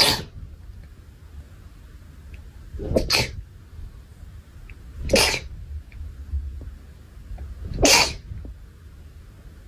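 Four short sneezes, a few seconds apart.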